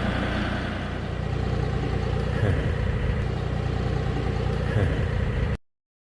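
A vehicle engine running steadily with a low hum. The sound cuts off abruptly about five and a half seconds in.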